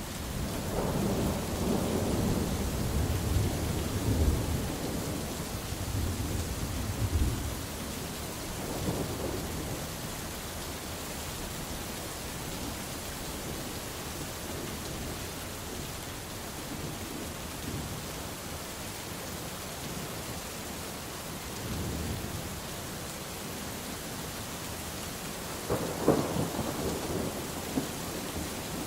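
Steady rain falling through a thunderstorm, with thunder rolling: a long deep rumble over the first several seconds, a couple of fainter rumbles, and a sharper, louder thunderclap near the end.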